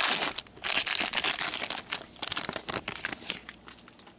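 Plastic-foil hockey card pack wrapper being torn open and crinkled by gloved hands, a dense crackling that thins out and stops about three and a half seconds in.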